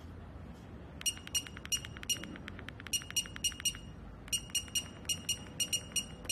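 Red light therapy panel's controls beeping at each button press as its settings are adjusted: a long run of short, high electronic beeps starting about a second in, several a second, with a quicker burst of shorter ticks around two seconds in.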